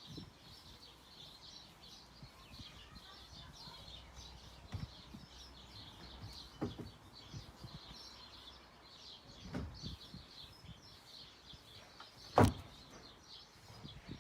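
Birds chirping steadily in the background, with a few scattered knocks, the loudest and sharpest about twelve seconds in.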